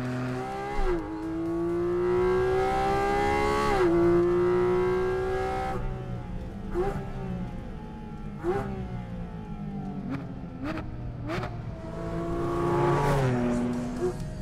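Porsche 718 Cayman GT4 RS's naturally aspirated 4.0-litre flat-six, the GT3 engine, revving hard through the gears: the pitch climbs and drops sharply at each quick PDK upshift, twice in long pulls, then in several short rise-and-drop bursts with sharp cracks between them, and one more climb that falls away near the end.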